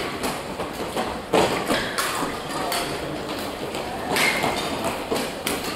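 Irregular sharp taps and thumps of badminton play in a large sports hall: rackets striking the shuttlecock and footfalls on the court floor, with the strongest knock about a second and a half in.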